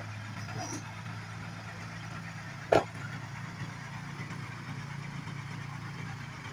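Dump truck's diesel engine running steadily at low revs, with one sharp knock, the loudest sound, a little under three seconds in.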